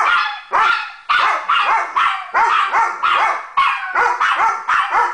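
A Weimaraner and a Chihuahua barking together in a fast, unbroken run of loud barks, several a second.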